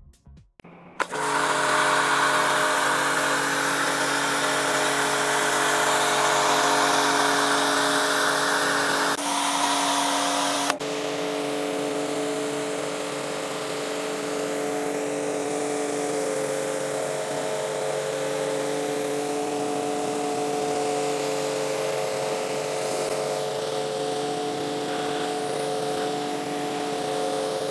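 A power tool's electric motor running steadily with a hiss. Its tone changes abruptly about nine and again about eleven seconds in.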